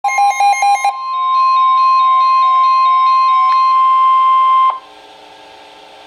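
Weather alert radios sounding a National Weather Service warning alert. Rapid beeping in the first second gives way to the steady single-pitched NOAA Weather Radio warning alarm tone, with softer alert beeps from the other radios pulsing beneath it. The tone cuts off abruptly near five seconds and leaves a faint broadcast hiss.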